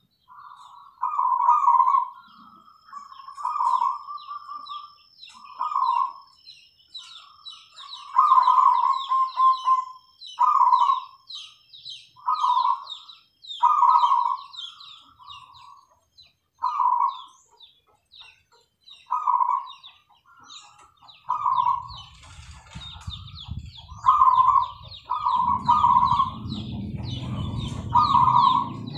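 Zebra doves cooing: short cooing phrases, one every second or two. Fast high chirping from smaller birds runs behind them, and a low rumble comes in about three quarters of the way through.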